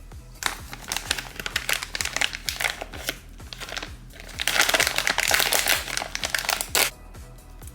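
Crinkling and rustling, densest from about four and a half to seven seconds in, over background music with a steady beat.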